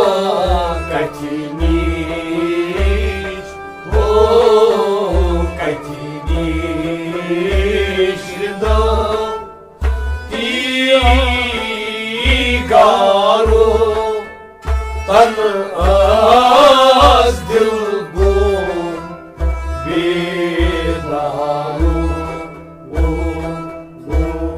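Kashmiri folk song: a man sings over a bowed sarangi, with a harmonium and a steady low beat of about one stroke a second on a hand-struck clay pot drum.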